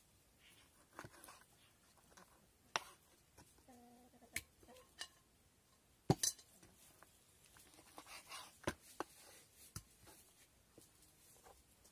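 A knife cutting raw lamb on a wooden cutting board: sparse, irregular sharp knocks of the blade meeting the board, with the loudest knock about six seconds in.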